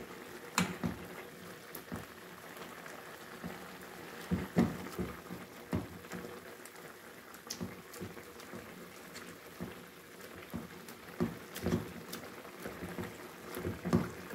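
Tomato and minced-meat mixture simmering and bubbling in a nonstick frying pan while a metal potato masher is pushed into it, giving irregular wet thuds and squelches.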